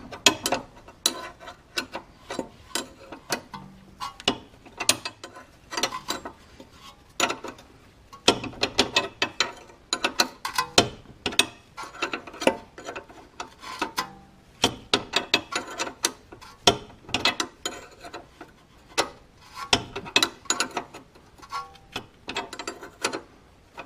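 Ratchet wrench clicking in short, irregular runs as the nut is run down onto the lower stud of a sway bar link.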